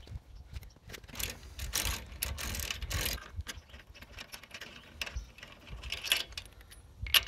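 Socket ratchet clicking in quick runs as a car wheel's lug nuts are undone, then sparser metallic clicks as the loosened nuts are turned off by hand, with one sharp click near the end.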